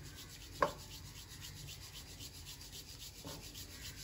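Steel mesh sieve shaken over a steel plate, ground fried semolina rustling and rasping through the mesh in a steady, rhythmic shake. A single sharp tap about half a second in, and a fainter one a little after three seconds.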